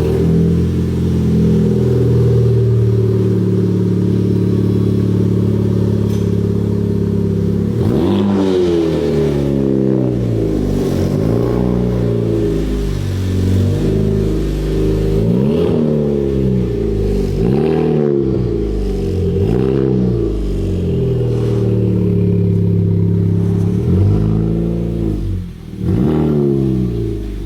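Honda Civic Type R's turbocharged 2.0-litre four-cylinder engine and exhaust, running at a steady speed for several seconds, then blipped over and over. Each rev climbs and falls back about every two to three seconds.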